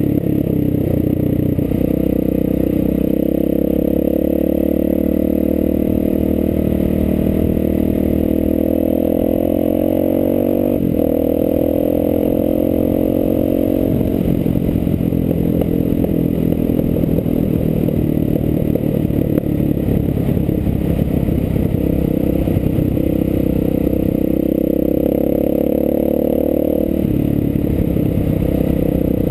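ATV engine running steadily under way, heard from on board the machine; the engine note shifts several times as the throttle or gear changes.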